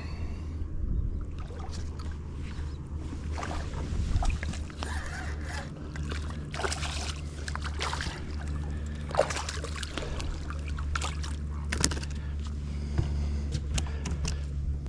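Steady low hum of a boat motor, with scattered irregular clicks, knocks and light water sloshing as a small snook is brought to the boat and handled.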